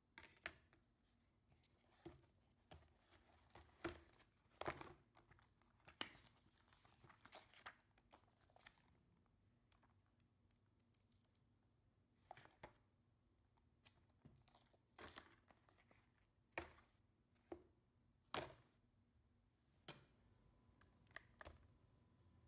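Faint paper-and-cardboard handling: a booklet's pages flipped, paper inserts and card sheets rustling and knocking against a cardboard presentation box, in scattered short rustles and taps.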